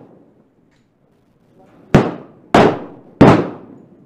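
Three 10mm pistol shots from a Glock 30 with a 10mm conversion barrel, fired in quick succession about two seconds in, roughly 0.6 s apart. Each has a short ringing tail.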